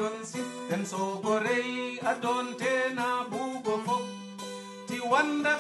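Music led by plucked acoustic guitar over a steady bass line.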